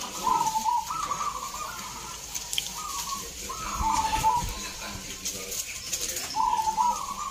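Several zebra doves (perkutut) cooing, their repeated coo phrases stepping between a higher and a lower note and overlapping one another.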